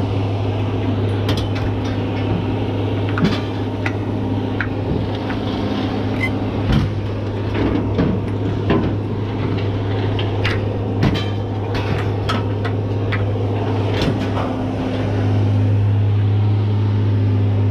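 An engine idling steadily, a constant low hum that gets a little louder near the end, with scattered clanks and knocks as scrap metal is untied and handled.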